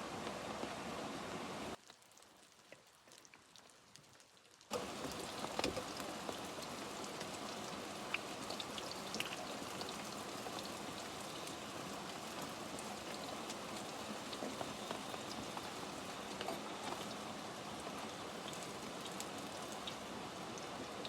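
Steady rainfall with many small, separate drop impacts. It drops to a much quieter hush for about three seconds near the start, then comes back.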